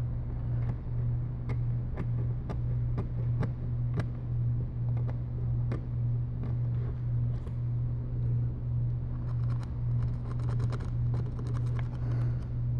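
Sharp metal tweezers scraping and clicking inside a phone's charging port to pick out packed dust, scattered small clicks with a denser stretch of fine scratching near the end. Under it a steady low hum swells and fades gently.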